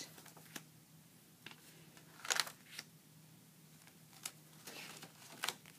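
Pages of a handmade paper junk journal being turned by hand: several short rustles and flaps of paper and cardstock on the binder rings, the loudest about two and a half seconds in. A faint steady low hum lies underneath.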